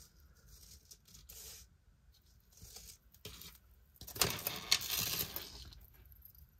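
Metal jewelry clinking and rustling as it is handled: a few faint clicks, then a louder jingle of chain and pieces at about four seconds that lasts about a second and a half.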